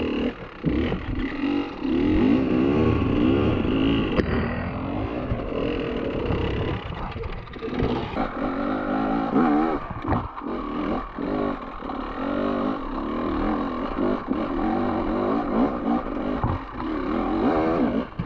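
Enduro dirt bike engine revving up and down again and again under load on a steep rocky climb, blipped and held as the rider works the throttle. Knocks and clatter from the bike bouncing over rock run through it.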